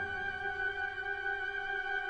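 Background music: a soft, sustained chord held steady between louder passages.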